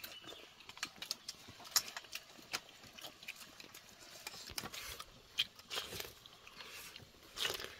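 Chopsticks clicking and scraping against rice bowls, one of them metal, as children eat: a run of irregular light clicks, with a longer scrape or slurp near the end.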